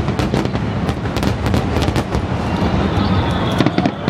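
Fireworks display: many shells bursting in quick, overlapping succession, sharp bangs and crackling over a continuous low rumble.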